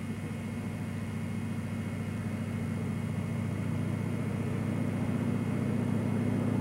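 Single-engine floatplane's engine and propeller droning steadily as it comes in low to land, growing louder as it approaches.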